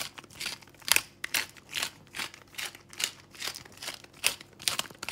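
Hand-held glass-bottle pepper grinder being twisted, grinding black peppercorns: a rhythmic gritty crunching, about two to three grinds a second.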